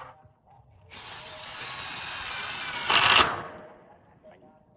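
A handheld electric power tool runs for about two and a half seconds with a high motor whine that grows louder. A loud, harsh burst comes a little after three seconds, then the tool stops and winds down.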